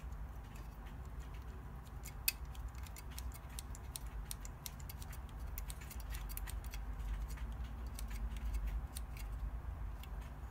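Light clicks and taps of small parts being handled and fitted together, a Raspberry Pi board being seated and fastened in a metal CNC case, with a quick run of clicks through the middle, over a low steady hum.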